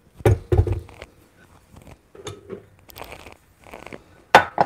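Kitchen items being handled on a counter: two knocks in the first second, soft rustling and scraping, and a sharp clack near the end. The stand mixer is not running.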